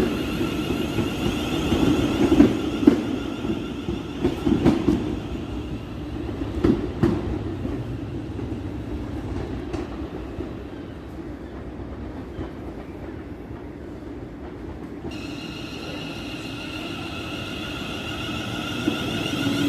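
A train running on the track, its wheels clicking over rail joints over a rumble that fades away through the first half. About fifteen seconds in, a steady high-pitched hum from a train's equipment sets in.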